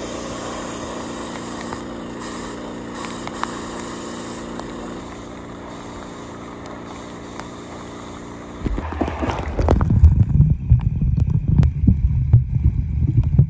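A steady low hum with a hiss over it gives way, about nine seconds in, to the loud, muffled, irregular water noise of a camera microphone underwater in a swimming pool.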